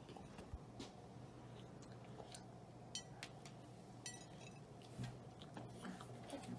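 Faint crinkles and small clicks of fingers handling a plastic packet and sticky dough on a plate, over a steady low room hum.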